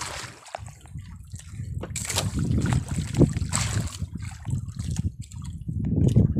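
Water sloshing and splashing unevenly against the hull of a small fishing boat, with a few sharper splashes.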